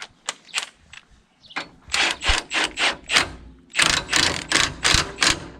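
Hand ratchet wrench clicking in quick back-and-forth strokes, likely snugging bolts on the brake assembly. It comes in two quick runs with a short pause between.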